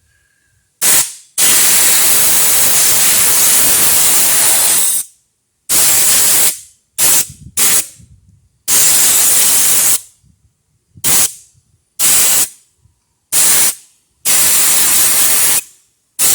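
Compressed air blasting dust out of a dirty desktop PC, as loud hissing bursts that start and stop sharply: a short one, a long blast of about three and a half seconds, then a run of shorter bursts.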